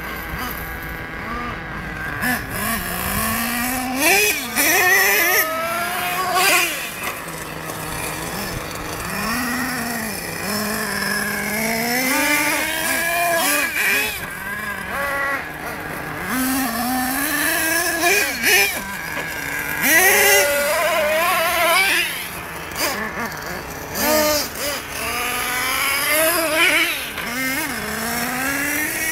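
HPI Savage nitro RC monster truck engine revving up and down over and over as the truck is driven around a dirt track, its pitch rising on the throttle and falling back when it lets off.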